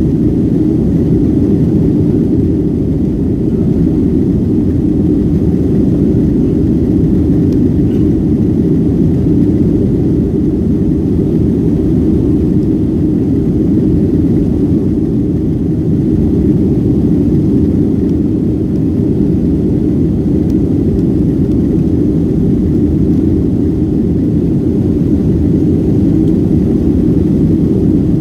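Steady cabin noise of a Boeing 757-200 climbing out after takeoff: jet engine and airflow noise heard from inside the passenger cabin. It is deep and even, with no change in level.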